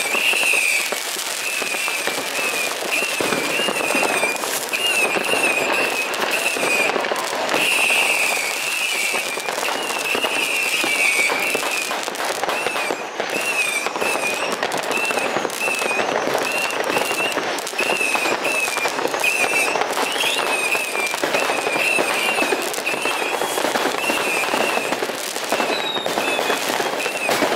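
Dense New Year's Eve fireworks: rockets and firecrackers crackling and popping continuously, bangs overlapping without a pause. A high, warbling tone wavers above the crackle.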